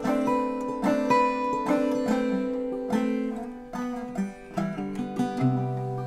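Instrumental passage of an acoustic folk band: a nylon-string classical guitar fingerpicked with a capo, together with mandolin, plucked notes ringing over each other. A low held bass note comes in about five seconds in.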